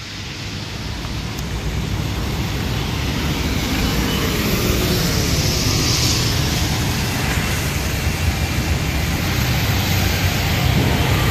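Loud low rumble of engine noise that builds up over the first few seconds and then holds steady, with a brief rise in hiss midway.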